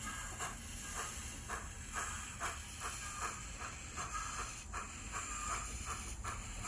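LokSound 5 sound decoder in an HO scale model of a C38 class steam locomotive playing steam exhaust chuffs, about two a second, over a steady hiss as the model runs slowly, heard through its small onboard speaker.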